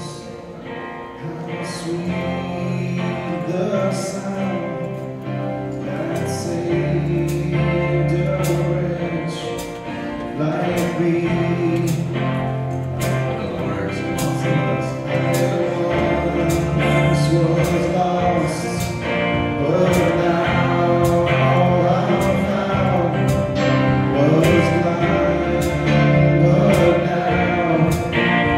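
Live worship band playing a slow gospel song: acoustic guitar, keyboard and drums with regular cymbal strokes over sustained bass notes, with sung vocals.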